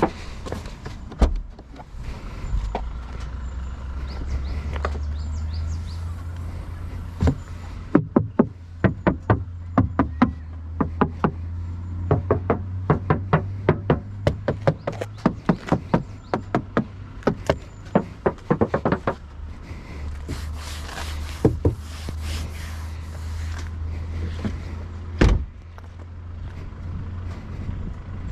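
Toyota GR Supra's 3.0-litre turbocharged inline-six running with a steady low hum. Over it come sharp knocks in irregular runs, at times several a second, and one loud knock about 25 seconds in: the knocking sound that the owner is showing.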